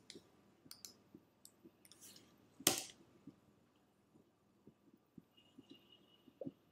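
Faint scattered clicks of a computer mouse and keyboard being worked, with one louder click about two and a half seconds in.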